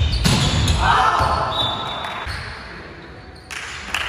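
Volleyball play in a reverberant sports hall: a sharp hit of the ball at the net just after the start, followed by loud shouts from the players. More ball thuds and calls come near the end as play stops.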